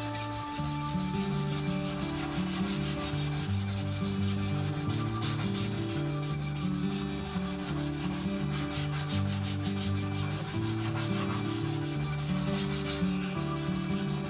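A green abrasive strip pulled rapidly back and forth, shoe-shine fashion, around a cricket bat's handle, sanding the wood in a fast, even rhythm of rasping strokes. Background music with low chord changes plays underneath.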